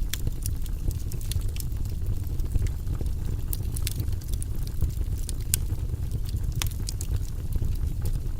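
Fire crackling in a fireplace: frequent irregular sharp pops and snaps over a steady low rumble.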